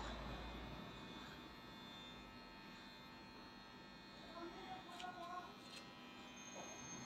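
Electric hair clipper buzzing steadily and quietly as it trims short hair up the back of a man's head and nape.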